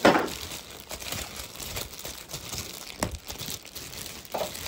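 Thin plastic bag crinkling as a hand rummages in it and handles the stack of clear plastic disposable cups inside. The rustle is loudest right at the start, with a sharp click about three seconds in.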